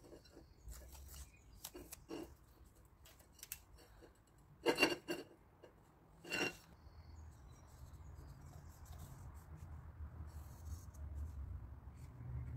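Light metallic clicks and clinks of parts and tools being handled, with two louder knocks near the middle and a low hum building in the second half.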